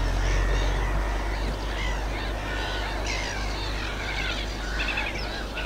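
Several birds calling at once, a tangle of short chirps and warbling phrases, over a steady low rumble.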